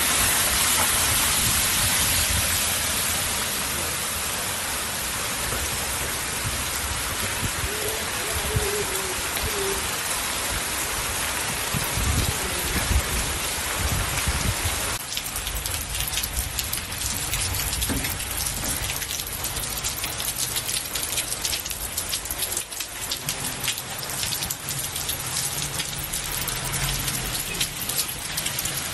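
Heavy monsoon rain falling on a waterlogged street: a steady, dense hiss. About halfway through it changes to a closer patter of separate drops.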